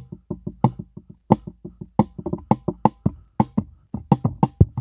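Fingers tapping a rhythmic beat on a FiFine AM8 USB microphone and its arm, about four to five knocks a second, picked up loudly by the mic itself. The mic's light plastic build may be why it is so sensitive to handling.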